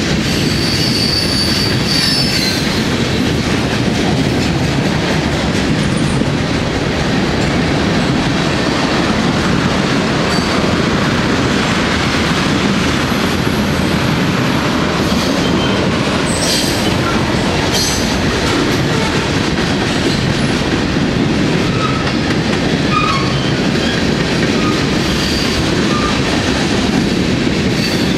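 Steel wheels of a freight train's tank cars and boxcars rolling past close by: a steady heavy rumble on the rails with a few sharp clicks. Brief high-pitched wheel squeals come about a second in and again around halfway.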